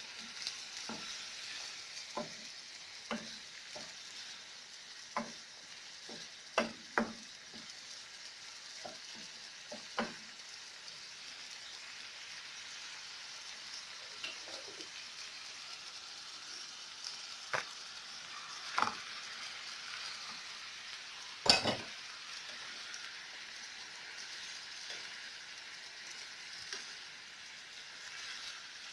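Food sizzling as it fries in a pan while being stirred, a utensil knocking against the pan about once a second at first, then only now and then, with one loud knock about two-thirds of the way through.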